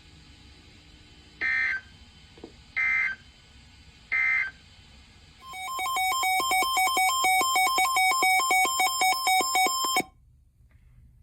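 Emergency Alert System SAME data bursts, three short screechy digital bursts about a second and a half apart, then an electronic alert tone warbling rhythmically between two pitches for about four and a half seconds before it cuts off, the signalling between one broadcast alert and the next.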